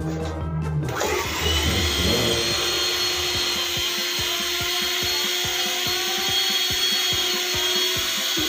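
Electric hand mixer switched on about a second in, its motor running with a steady whine as the beaters whip frosting in a stainless steel pot, with a quick regular ticking underneath.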